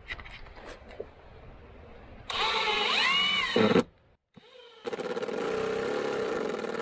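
24-volt brushless cordless drill running twice, driving a screw into a wooden batten. First a short run whose whine rises and then falls, then after a brief pause a steady run of about three seconds.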